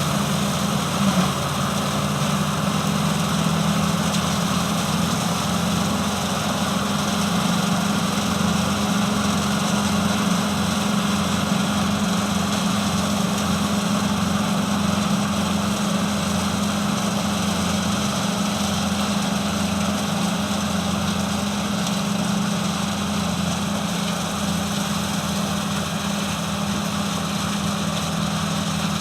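A motor or engine running steadily at an even speed, a continuous drone with a strong low hum.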